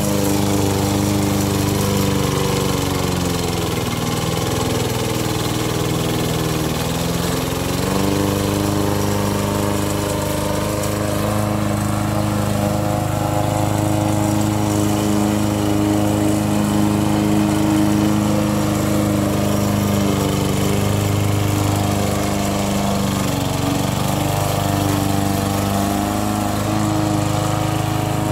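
Homemade radio-controlled lawn mower's small engine running steadily as it mows tall grass. Its pitch sags for a few seconds a little way in, then picks back up, with a shorter dip near the end.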